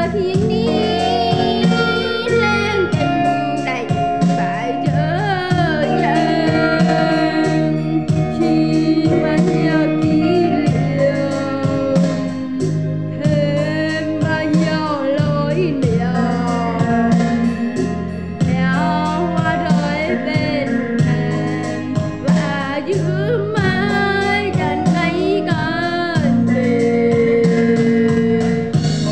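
A woman singing a slow Vietnamese bolero ballad over instrumental backing, with vibrato on the held notes.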